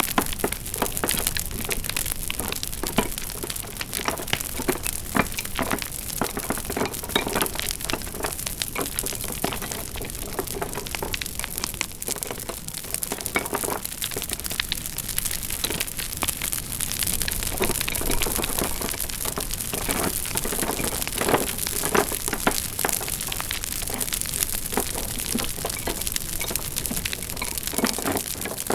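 Wood fire crackling: an irregular stream of small pops and snaps over a steady hiss.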